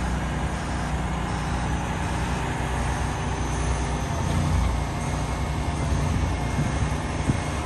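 Heavy-haul diesel truck running steadily as it slowly pulls a long bridge beam on a multi-axle trailer, a deep, steady rumble.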